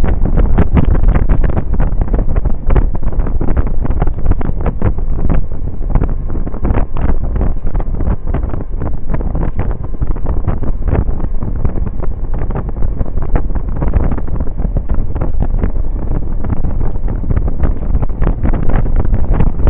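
Steady wind buffeting and rumbling on the microphone of a Suzuki Burgman 650 maxi-scooter riding at road speed, loud and continuous with constant irregular gusts.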